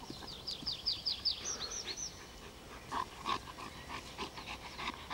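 Black German Shepherd panting rhythmically while heeling, the panting starting about three seconds in. Before that, a bird sings a quick run of high, falling notes.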